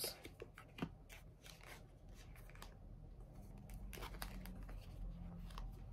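Faint, scattered small clicks and light rustles over a low hum.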